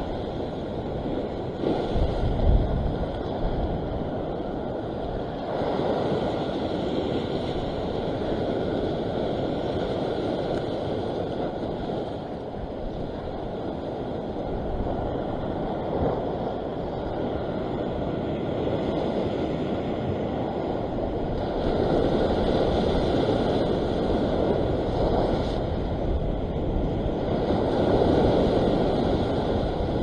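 Ocean waves surging and washing over a rock ledge, the rush swelling and fading every few seconds. Wind buffets the microphone, strongest about two seconds in.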